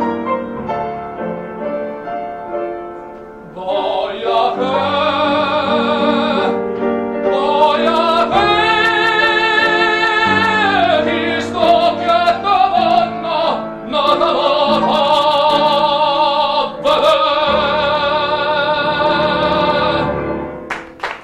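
Operatic tenor singing a Neapolitan song with grand piano accompaniment. The piano plays alone for the first few seconds, then the voice comes in with strong vibrato, holds one long sustained note midway, and the song ends just before the close.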